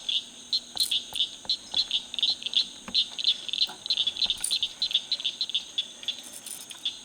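A steady chorus of high chirping calls, repeating about three to four times a second, from frogs or insects calling near the water. A few faint clicks sound over it.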